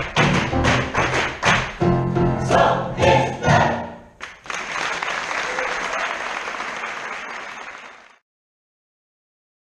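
Large choir with piano and drum kit singing the last bars of an upbeat song, with sharp accented chords, ending about four seconds in. Audience applause follows and cuts off abruptly about eight seconds in.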